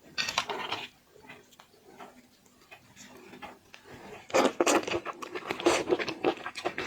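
A person chewing seafood close to the microphone, with wet, clicky mouth sounds: quiet for a few seconds, then louder rapid chewing from about four seconds in.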